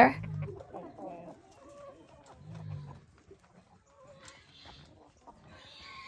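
Chickens clucking softly as they forage, in scattered short low calls, with a brighter, higher call coming in near the end.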